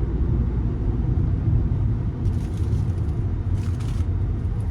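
Steady low road and engine rumble heard from inside a moving car's cabin, with fainter, higher-pitched noise coming in over it in the second half.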